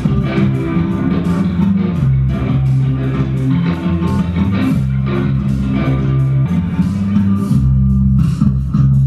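Instrumental rock played on electric guitar and electric bass over a steady beat of light percussion; the bass holds long low notes that change every second or so.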